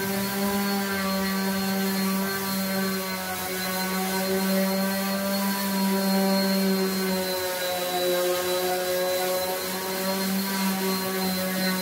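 Electric random orbital sander running steadily while sanding the willow face of a cricket bat: a constant motor hum over the hiss of the pad on the wood, dropping slightly in pitch about seven seconds in.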